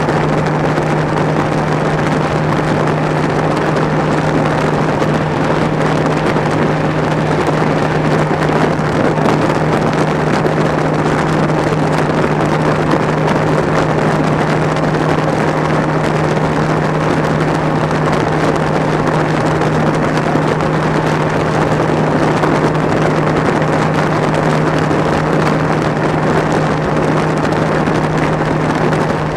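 Bass boat's outboard motor running steadily at high speed, one unchanging drone with a rush of wind and water over it.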